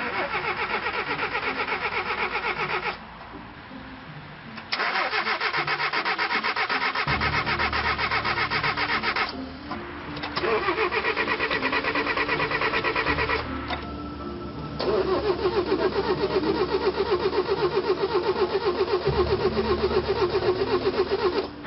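Old car's starter cranking the engine in four long bursts with short pauses between, a fast even chugging of several pulses a second.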